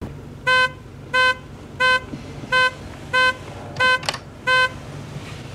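Car's two-way radio beeping with an incoming call: seven short, even electronic beeps about two-thirds of a second apart. A click about four seconds in as the handset is taken from its dashboard clip.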